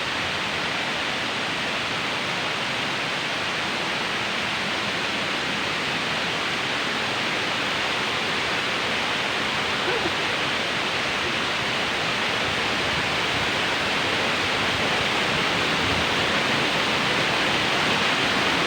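Waterfall rushing: a steady hiss of falling water that grows slowly louder throughout.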